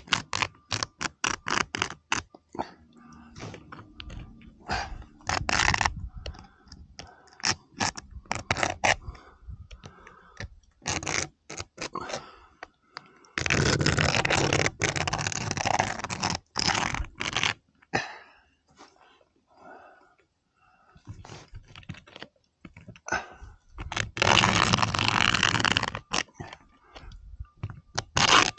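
A nail scratching a cut line into the roof surface as it is swung round a pivot to scribe a circle. There are short scratches and clicks at first, then two long scraping passes in the second half.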